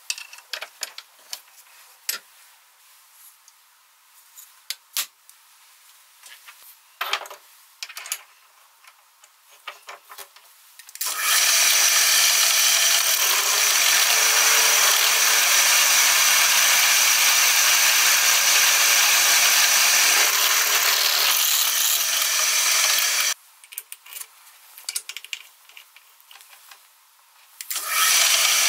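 Small metal clicks and knocks as a steel hex nut is handled and clamped in a machine vise, then a drill press runs steadily for about twelve seconds, its twist bit cutting into the nut, and cuts off suddenly. After a few more clicks the drill press starts again near the end.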